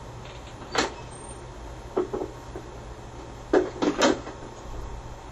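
A steady low rumble with several short, sharp knocks: one about a second in, two close together near the middle, and three in quick succession a little later.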